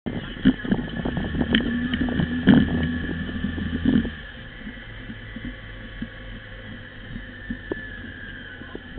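Side-by-side UTV driving a rough dirt trail: its engine runs with a steady low drone while the cab and frame rattle and knock over the bumps. The knocking is heavy for about the first four seconds, then it eases to a quieter drone with only an odd knock.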